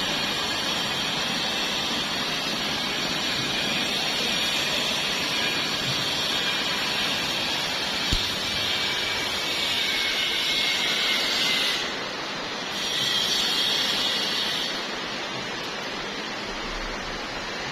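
Heavy rain falling as a steady hiss. It dips briefly about twelve seconds in and is quieter after about fifteen seconds, with a single knock about eight seconds in.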